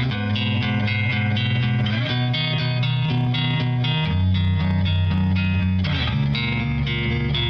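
Background music: a guitar-driven song with a steady beat.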